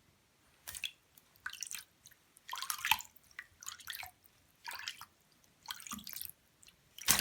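Water splashing and dripping in short, separate bursts, about a dozen scattered through, as a small pet bird is bathed.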